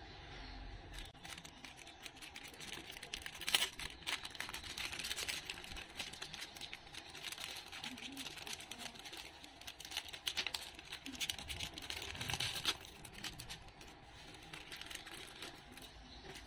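Crinkly plastic packaging being handled and opened by hand: steady rustling with many small crackles, and sharper crackles about three and a half seconds in and again around twelve seconds.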